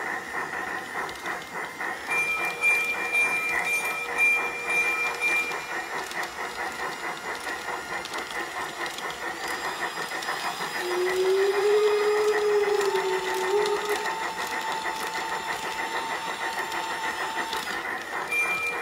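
Piko G-scale model steam locomotive (class 80) running, with a steady rhythm of chuffs and clicks from its sound unit and wheels on the track. Steady whistle-like tones come and go in the middle.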